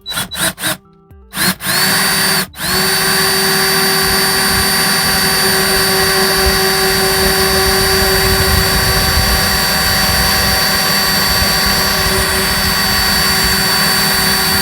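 Power drill with a 1/8-inch bit drilling a pilot hole into a thick metal electrical box. It gives a few short trigger bursts, stops briefly about two and a half seconds in, then runs steadily with a constant high motor whine.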